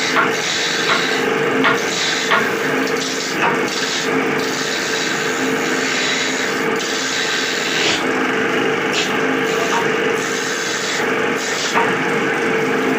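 Wood being worked with a tool: rough rasping strokes, one after another, over a steady hum.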